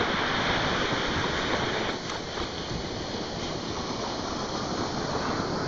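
Ocean surf and wind on the microphone: a steady rush of noise that eases a little about two seconds in.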